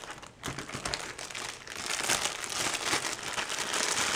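Thin plastic bag crinkling as it is gripped and lifted out of a box, growing louder about halfway through.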